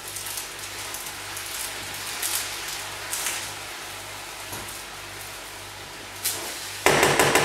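Vegetables and turkey strips sizzling steadily in a frying pan while a wooden spatula stirs them, with a few brief scrapes. Near the end comes a sudden loud clatter.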